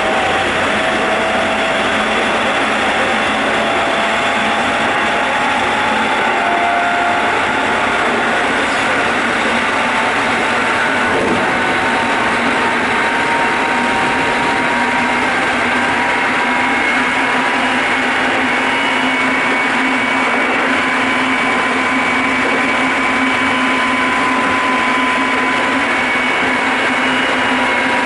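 Keikyu 800 series electric train running, heard from the floor above a bogie: steady wheel-and-rail noise with thin, faint whining tones that climb slowly over the stretch.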